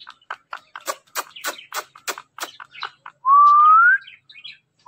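Indian ringneck parakeet clicking rapidly, about four sharp clicks a second, for two and a half seconds, then giving one clear whistle that rises in pitch.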